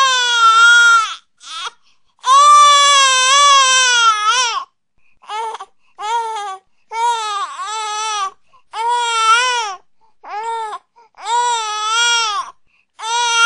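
Newborn baby crying: about ten wavering wails with short gaps between them, the longest held about two seconds.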